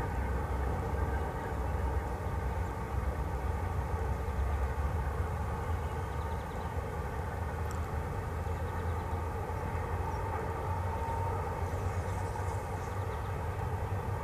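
Distant diesel-hauled freight train crossing a viaduct: a steady low rumble with an even engine drone that holds throughout.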